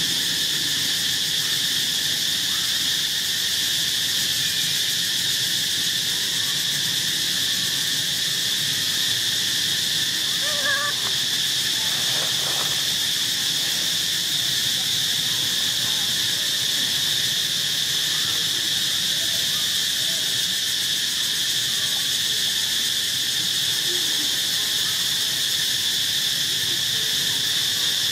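Steady, high-pitched drone of an insect chorus, with one short, faint pitched call about eleven seconds in.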